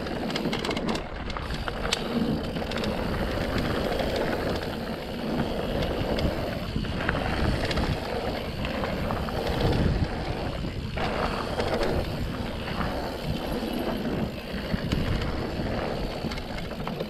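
Mountain bike rolling fast down a dirt forest singletrail: a steady rush of tyre and wind noise with frequent small knocks and rattles from the bike over bumps and roots.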